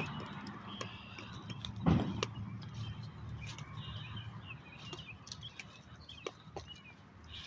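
Small carried items clinking and jangling as a person walks, with a thump about two seconds in and faint goose calls in the background.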